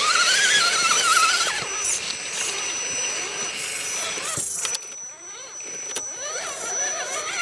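Electric motors and gear drives of RC rock crawlers whining as they climb over rock, the pitch wavering up and down with the throttle. A thin, high, steady tone runs underneath. The sound drops in level a little past the middle.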